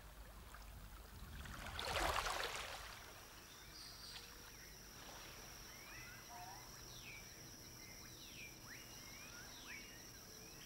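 Faint outdoor ambience of birds giving scattered short, downward-sliding chirps over a steady high-pitched whine. About two seconds in there is a brief rush of noise.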